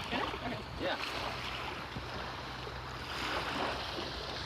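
Steady wind and water noise around a canoe out on the water, with a brief voice near the start.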